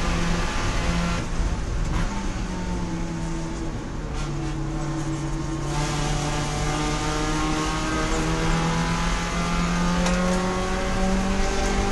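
Spec Miata's four-cylinder race engine under load. About a second in the note drops and quiets as the throttle lifts. From about six seconds in it comes back on and climbs steadily in pitch as the car accelerates.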